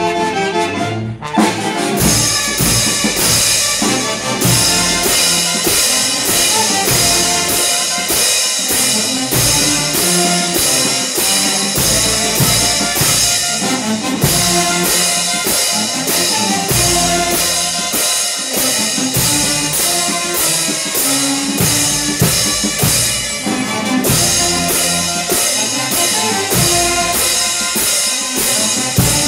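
Marching brass band playing: trumpets and other brass over a steady beat of bass drum and clash cymbals. The drum and cymbal beat comes in about two seconds in.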